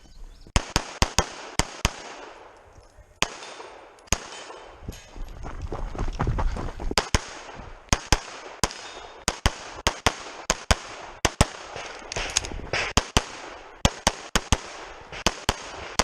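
Rapid pistol fire in a USPSA stage: dozens of sharp shots in quick strings with short pauses between target arrays. In the middle, a stretch of rushing noise comes in while the shots thin out.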